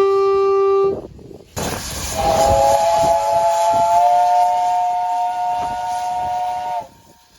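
A single-note train horn blast ends about a second in. After a short break, a three-note chime train horn sounds one long blast over a steady rushing noise, its chord rising slightly in pitch as it starts, and cuts off abruptly near the end.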